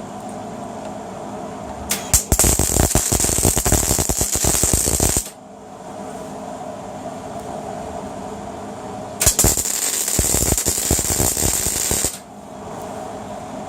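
Electric arc welder crackling and sizzling in two bursts of about three seconds each, joining a piece of steel pipe to a steel weight. A steady hum runs underneath.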